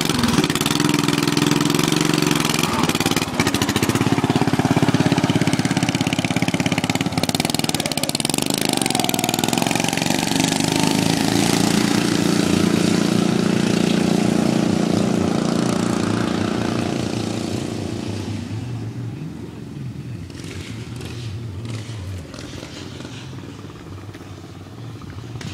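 Racing lawn mower engine running hard, its pitch rising and falling as the throttle is worked, then fading to a low level over the last several seconds.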